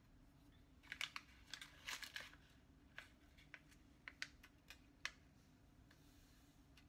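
Crinkling and rustling of a foil packet of instant yeast being handled, a burst about a second in, followed by several separate light ticks as a measuring spoon scoops from it, over a faint low hum.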